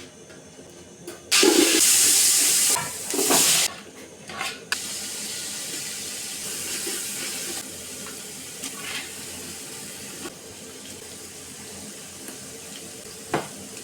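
Rushing water: a loud gush for about a second and a half and a second, shorter one, then a softer steady hiss of running water that eases off a little near the end.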